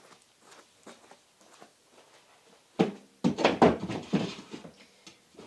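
Faint footsteps of high heels on carpet, then, just under three seconds in, a solid wooden drawer knocking against an oak chest of drawers and sliding into its runners with a run of wooden bumps and rubbing.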